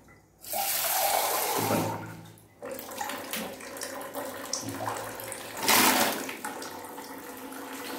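Tap water running into a small hand-held pot, a loud rush for the first couple of seconds, then a softer steady flow with a brief louder splash about six seconds in.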